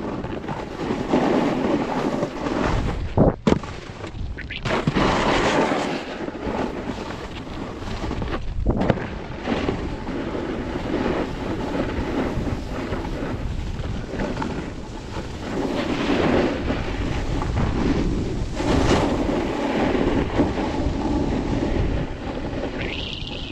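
Wind buffeting an action camera's microphone while riding down a groomed ski slope, with edges scraping over packed snow. A few sharp knocks about three seconds in and again near nine seconds.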